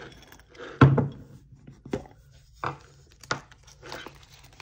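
About five knocks and taps on a wooden tabletop, the loudest about a second in, as a jar of coins with a wooden lid is opened and a plastic zipper coin pouch is handled.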